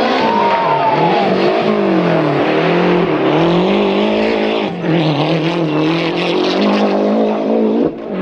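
Rally1 rally car engine at speed, its revs climbing and dropping again and again through gear changes and lifts, with a brief drop in level about three-quarters of the way through. Near the end the sound cuts abruptly to another car.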